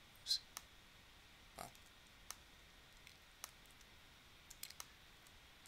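Faint, scattered clicks of a computer mouse and keyboard keys, about half a dozen spread over several seconds, the strongest near the start.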